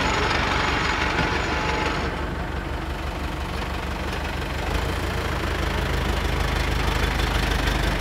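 Heavy diesel engine idling: a steady low rumble that grows louder about halfway through.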